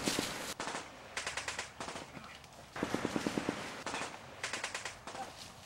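Several short bursts of rapid automatic gunfire, the loudest about three seconds in.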